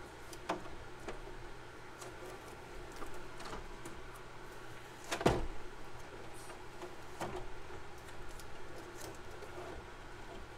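Hands handling a plastic RC car body and blue masking tape: scattered light clicks and knocks, with one louder knock about five seconds in, over a faint steady low hum.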